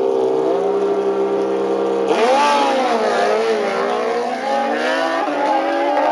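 Two drag-racing motorcycles on the start line, their engines holding a steady note, then launching about two seconds in. The engine sound jumps sharply and the pitch rises, dips and climbs again as they accelerate away down the strip.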